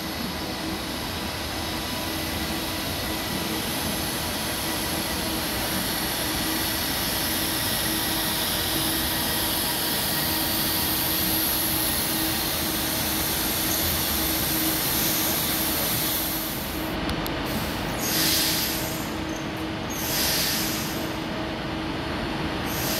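TransPennine Express passenger train running slowly past along the platform, a steady hum of its traction equipment over wheel and rail noise. Near the end, after a change in the sound, two louder rushing surges come a couple of seconds apart.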